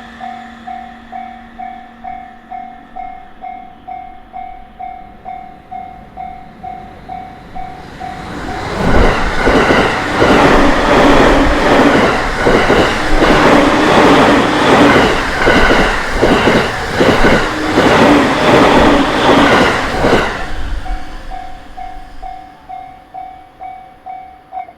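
Japanese level-crossing warning bell ringing about twice a second, then an electric train on the JR Takasaki Line passes over the crossing for about twelve seconds, its wheels clattering rhythmically over the rail joints. The bell is heard again, fainter, after the train has gone by.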